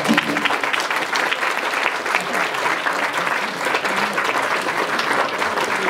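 Audience applauding steadily. The last chord of a nylon-string classical guitar dies away as the clapping begins.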